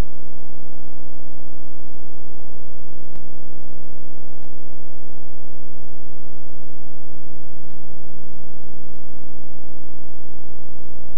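Loud, steady electrical hum and hiss from the videotape transfer: a stack of even, unchanging tones. Faint clicks come about three seconds in, at about four and a half seconds, and near eight seconds.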